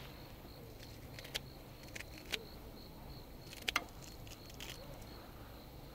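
Kitchen scissors snipping through kimchi held in metal tongs: a handful of short sharp snips and clicks. Under them runs a faint, steady high insect chirring.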